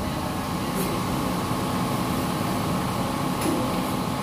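Steady machine hum of workshop equipment, with two faint clicks, one about a second in and one about three and a half seconds in.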